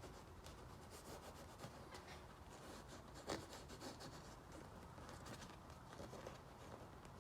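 Faint rubbing and scratching of a patch being pushed and worked in through a tear in a motorcycle seat cover, with one sharper scrape about three seconds in.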